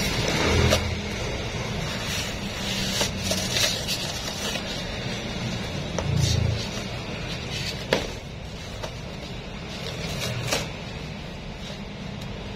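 Cardboard shipping box being cut open and handled: scraping and rustling of the cardboard, with scattered knocks.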